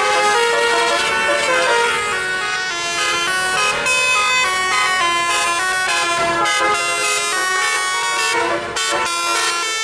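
Tour bus's multi-tone "telolet" air horn playing a tune of stepped, changing notes, one after another.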